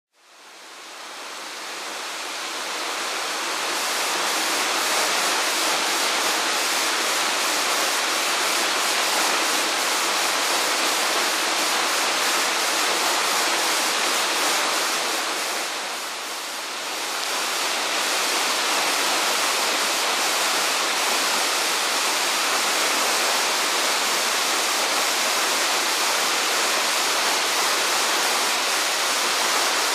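Waterfall pouring, a steady full rush of falling water that fades in over the first few seconds and turns briefly quieter and duller about halfway through.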